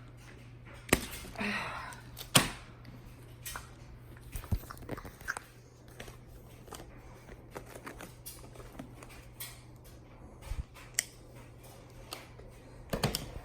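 Scattered clicks, taps and knocks with a brief rustle, from handling a car seat and its packaging during unboxing, over a steady low hum.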